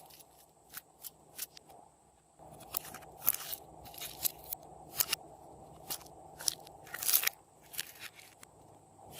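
Slime being squished and pressed, giving irregular sharp crackling pops and clicks, with a longer crackle about seven seconds in.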